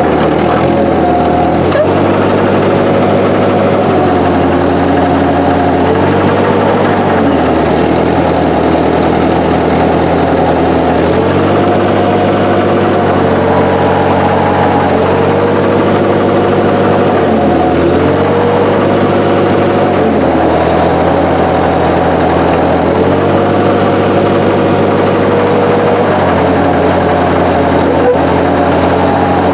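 Massey Ferguson 202 Work Bull's Continental Z134 engine running steadily. Its pitch sags and recovers every few seconds, as the engine takes load from the backhoe's hydraulics while digging.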